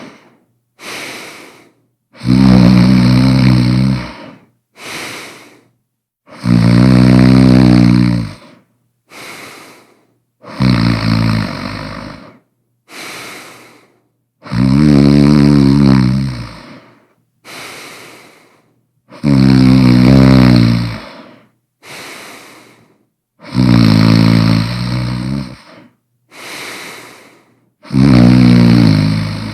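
A person snoring loudly in a steady rhythm: a long snore of about two seconds every four seconds or so, each followed by a shorter, quieter breath.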